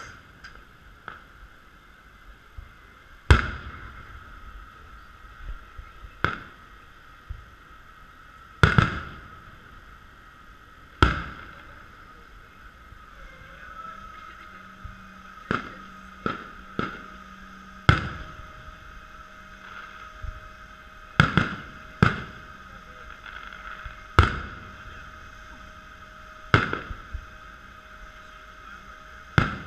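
Aerial fireworks shells bursting: about a dozen sharp booms a few seconds apart, some in quick pairs, each with a short echoing tail, over a steady background hum.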